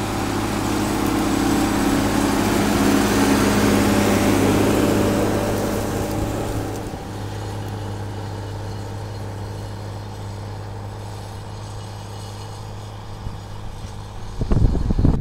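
John Deere 4240S tractor's six-cylinder turbo diesel engine running steadily under the load of a five-furrow plough. It is loudest in the first few seconds as the tractor passes close, then quieter as it works away across the field. Near the end, gusty wind buffets the microphone.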